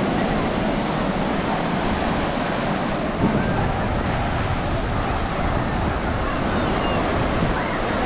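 Ocean surf washing onto a beach in a steady, continuous rush.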